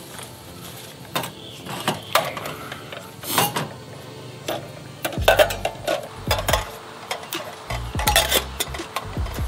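Metal clicks and clatter from a portable butane camping stove being set up: a gas canister fitted into it and a metal camping kettle set on the burner. Scattered knocks at first, with busier clattering about halfway through and again near the end.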